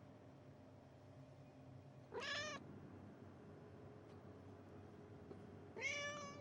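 Domestic cat meowing twice, two short calls that rise in pitch, about three and a half seconds apart.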